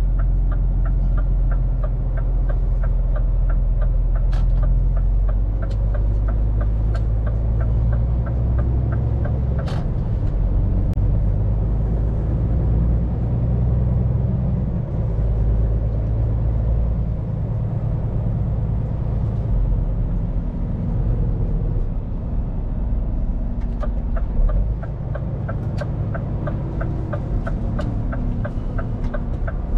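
Scania P410 truck's diesel engine running steadily, heard from inside the cab, its pitch shifting now and then with road speed. A fast, regular turn-signal tick runs through the first third and starts again near the end.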